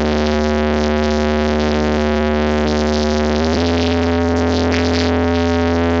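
Electronic dance music playing on a party bus's stereo system. Held synthesizer chords sit over a steady deep bass, and the chord shifts about halfway through.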